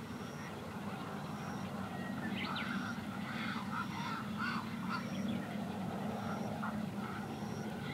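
Black-crowned night herons calling in a breeding colony: a cluster of short, harsh squawks from about two to five and a half seconds in, over a steady low hum.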